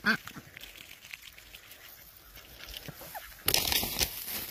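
Domestic ducks feeding, with a short call at the start and faint calls later. About three and a half seconds in, a loud rustling noise starts and carries on.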